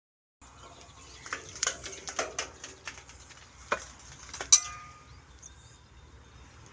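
A run of metal clinks and knocks from a spanner working on a stopped old Ruston diesel engine. It ends in one loud metallic clang with a brief ring about four and a half seconds in.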